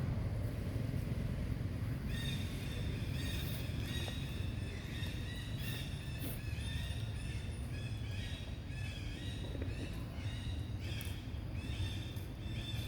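An animal's short high chirping calls repeating rapidly from about two seconds in, over a low steady rumble.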